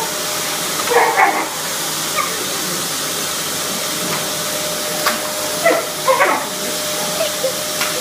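Vacuum cleaner running steadily with a constant whine, while a Border Collie puppy barks at it in short bursts: a couple about a second in and a cluster around six seconds.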